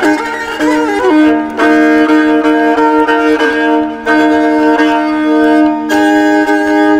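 Solo violin playing a gengkhuli folk-ballad interlude without voice: long held bowed notes, several sounding together, the melody shifting about every two seconds.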